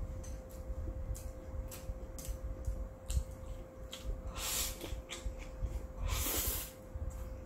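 Close-up eating sounds: wet chewing clicks, then two slurps from a small bowl raised to the mouth, about four and a half and six seconds in. A faint steady hum sits underneath.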